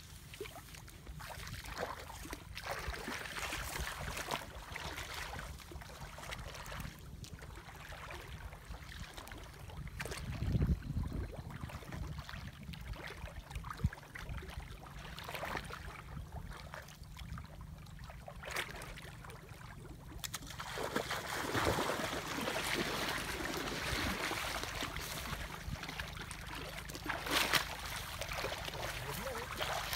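Water sloshing and swishing around legs wading slowly through knee-deep water, getting louder and denser from about twenty seconds in.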